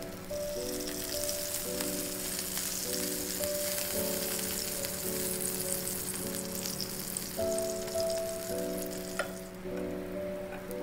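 Burger patty sizzling in hot oil in a nonstick frying pan, a steady high hiss that thins out near the end. Background music with held, changing notes plays throughout.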